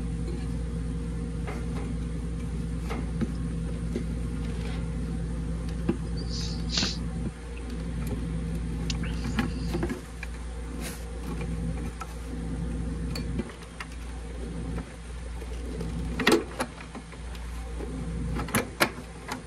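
Steady low electrical-sounding hum, with scattered small clicks and knocks as hands push wire connectors onto a vending machine control board; the sharpest clicks come near the end.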